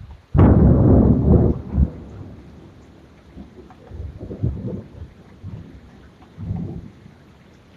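Thunder from a storm: a sharp crack about half a second in crackles loudly for over a second, then gives way to two weaker rolling rumbles that die away. Steady rain runs underneath.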